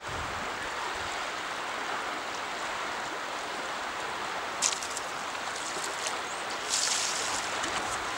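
Steady rush of a flowing river. Two brief high hissing swishes stand out over it, a short one about halfway through and a longer one near the end.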